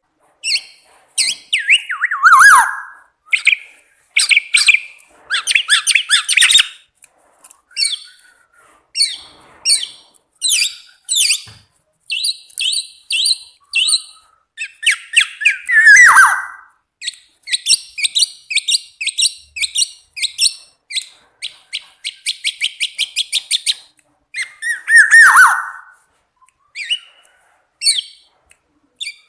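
Pet songbird calling and singing: a run of high chirps and fast even trills, broken three times by a loud call that slides steeply down in pitch.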